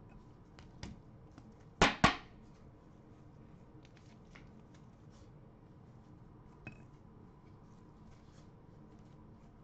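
Trading cards in hard plastic holders being handled and set on display stands: two sharp plastic clacks close together about two seconds in, a lighter click near seven seconds, and faint ticking and rustling between.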